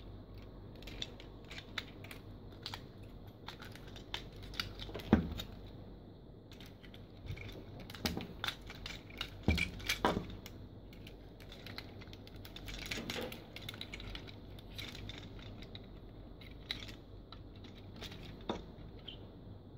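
Hard plastic parts of a Transformers Optimus Prime toy figure clicking and knocking as it is handled and its limbs and panels are moved, in scattered sharp clicks, the loudest about five seconds in and again around nine to ten seconds.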